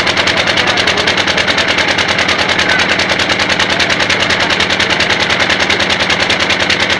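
Boat engine running steadily, with a rapid even chugging beat of about ten pulses a second.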